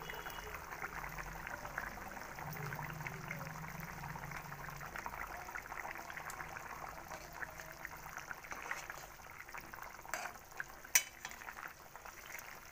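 Fish curry with potatoes (machher jhol) simmering in a kadai, a steady crackly bubbling of thick gravy. A single sharp knock near the end.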